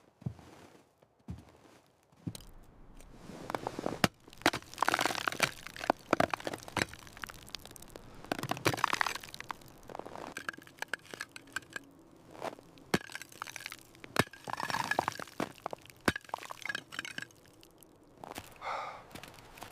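Wood cracking and crunching, typical of firewood being handled or burning: a long run of sharp, irregular cracks with scraping, crunching noise between them.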